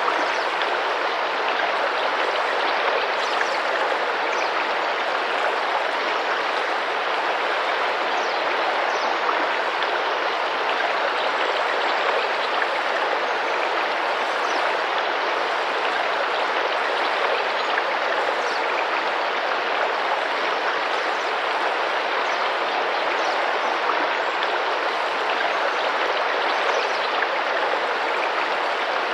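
Rainforest river water rushing and splashing steadily over rocks, a dense, even wash of sound. Faint, short high chirps rise above it every few seconds.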